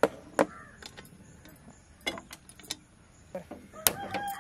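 A hand-held spark gas lighter clicking repeatedly while lighting the burners of a gas stove: a string of sharp, irregularly spaced clicks, loudest at the start and near the end.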